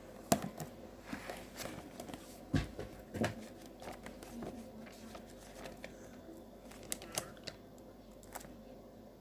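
Close handling noise: rustling with scattered soft knocks and taps, the sharpest just after the start and two more about two and a half and three seconds in, then a few lighter ticks near the end.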